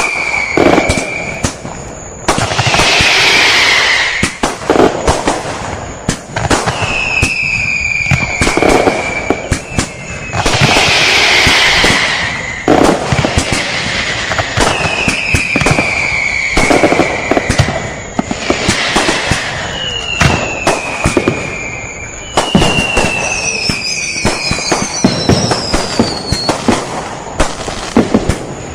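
Filipino New Year firecrackers (paputok) going off in dense strings of cracks and bangs, with several whistling fireworks that glide down in pitch and longer loud bursts of crackling between them.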